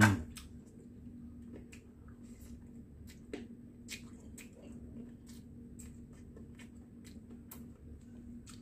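Scattered soft, wet clicks and squishes of someone eating a cooked whole chicken with their hands, tearing the tender meat and chewing, over a faint steady hum.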